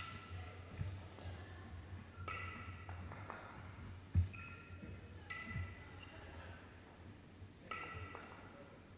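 Dull low thuds a few seconds apart from a kettlebell long cycle: two kettlebells dropping into the rack and the lifter's heels landing. The loudest comes about four seconds in, and all of it sits over the steady din of a large gym hall.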